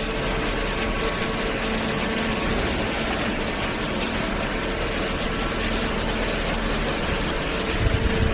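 Horizontal hydraulic waste paper baler running, its hydraulic pump and motor giving a steady hum. Some low knocks come in near the end.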